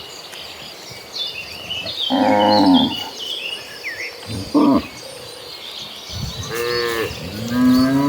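Cattle mooing: a loud moo about two seconds in, a short one near the middle, and a long moo that begins near the end, its pitch rising and then falling.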